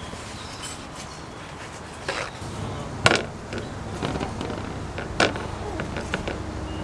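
Scattered knocks and clicks of hands handling things over a low background, the sharpest about three seconds in and another about five seconds in.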